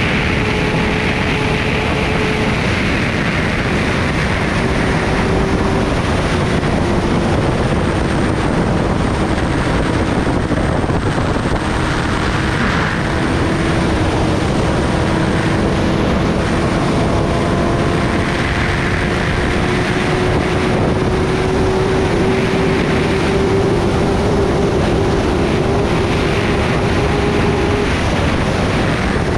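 Kawasaki Ninja ZX-10R's inline-four engine running at steady highway cruising speed, under a heavy rush of wind and road noise. The engine note dips slightly early on, then climbs slowly as the bike gathers speed.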